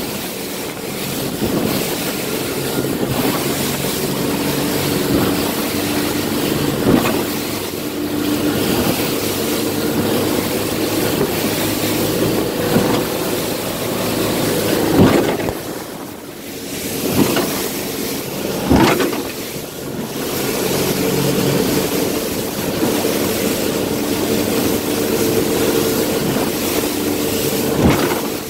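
Motorboat engine running steadily under the rush of wind and spray along the hull, as the boat drives through waves. About five sharp slams break through as the hull hits waves, the strongest around the middle.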